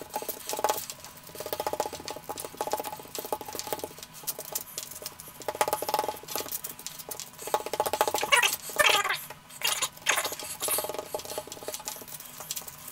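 Hands pressing and smoothing raw minced beef-and-pork meatloaf mixture flat on baking paper, a wet squishing in irregular short strokes.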